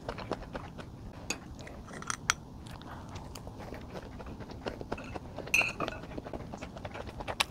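Close-up eating sounds: a person chewing and biting a mouthful of noodles, vegetables and rice, with many short clicks of metal chopsticks on the dishes and a louder brief noise a little after halfway.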